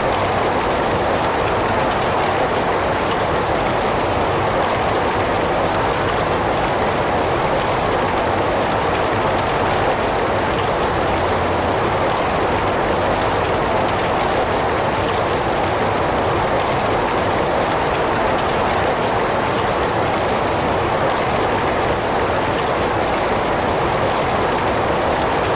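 Heavy rain falling steadily, a dense unbroken hiss with no distinct single drops standing out.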